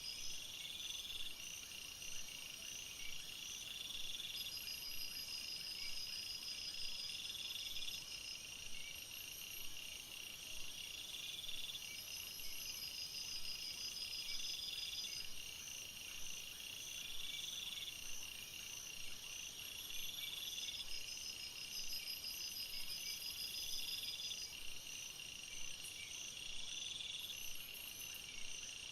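Night chorus of insects such as crickets: several high-pitched chirping voices overlap, one swelling and fading about every two seconds, others giving fast even pulse trains and a thin high trill.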